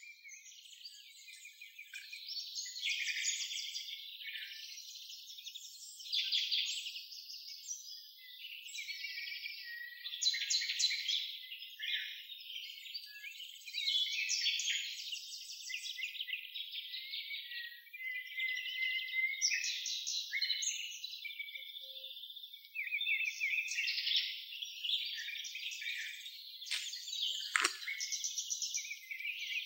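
A dense chorus of many small songbirds, with overlapping chirps and trills and no pause.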